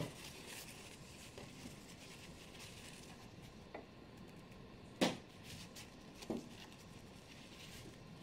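Faint rustling of fabric being handled at a sewing machine, with a few soft knocks, the loudest about five seconds in.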